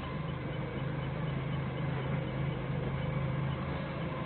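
Doosan 4.5-ton forklift's engine running steadily at idle, heard from the operator's seat.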